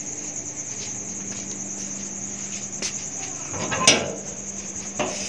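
Crickets chirping steadily in the background. Near the end a metal sliding bolt on a wooden door is drawn back with a loud scraping clack, followed by a sharp click about a second later.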